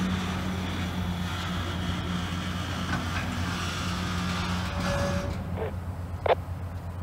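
Loaded freight boxcars rolling slowly over a road crossing: steady rail and wheel noise over a low drone, easing off about five seconds in, then a brief sharp noise about six seconds in.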